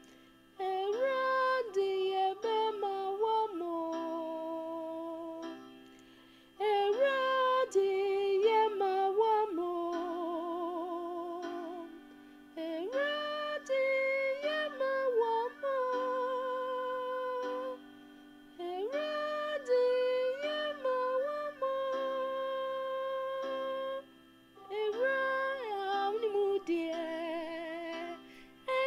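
A woman sings a gospel song in Akan in five phrases with long, wavering held notes, over held accompaniment chords.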